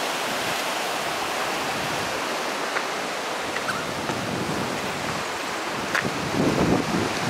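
Surf washing steadily over the rocky shore below the cliffs. From about six seconds in, wind buffets the microphone with low rumbling gusts.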